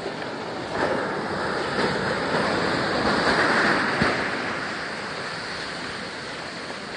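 Ocean surf breaking and washing up a sandy beach. The rush of water swells to its loudest about three to four seconds in, then eases off as the wash spreads and ebbs.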